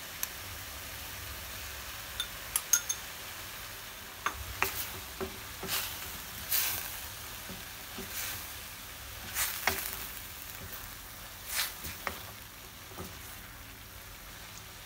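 Sliced vegetables and tomato paste sizzling in a wok as they are stirred and tossed with a wooden spatula. The spatula clicks and scrapes against the pan every second or two.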